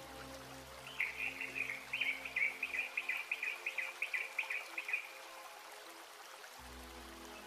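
Soft background music with birdsong: a bird chirps in a quick run of high notes for about four seconds. The music drops away in the middle and comes back near the end.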